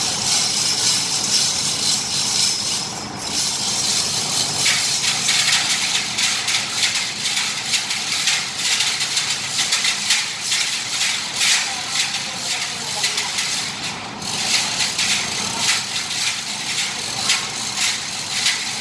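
Rapid metallic rattling and clicking of hoisting gear raising a 7.5 hp centrifugal exhaust blower, over a steady high hiss. The rattling starts up about four seconds in and drops out briefly near the end.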